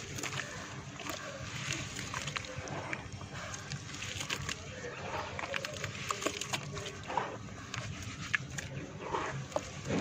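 Wet red dirt being squeezed and crumbled by hand in water, with squelching and many small crackles as the soft chunks break apart.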